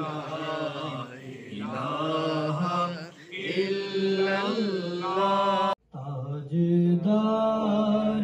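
Unaccompanied male voice chanting a naat, an Urdu devotional poem, in long held notes that slide between pitches. It drops out abruptly about six seconds in, and another male voice takes up the chant in long held notes, louder.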